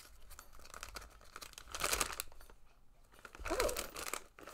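Brown paper mailer bag rustling and crinkling as hands dig into it, with two louder bursts about two seconds in and near the end.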